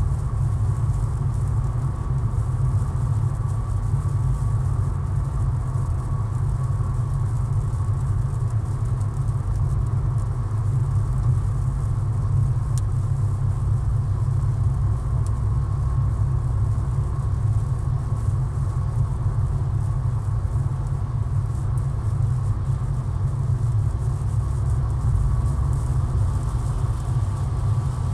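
Steady low road rumble heard inside a car cruising on a highway: engine and tyre noise with no change in speed, and a faint steady tone above it.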